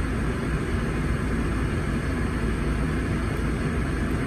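Steady low rumble of car interior noise, heard from inside the cabin.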